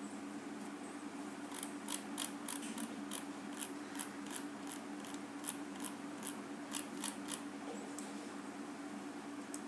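Computer mouse scroll wheel ticking: about twenty sharp clicks, roughly three a second, starting about a second and a half in and stopping near the end, over a steady low hum.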